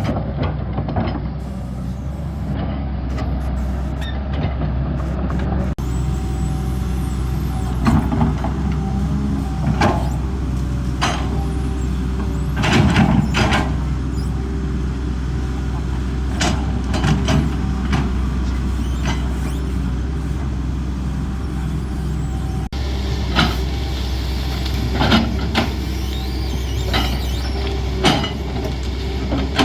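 Diesel engine of a CAT 320D excavator running steadily under work, with repeated sharp knocks and clanks from the machine as it digs and moves material.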